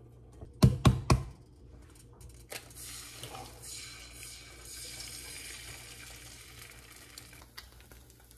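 Kitchen sounds: three sharp knocks in quick succession about a second in, then a steady hiss lasting several seconds.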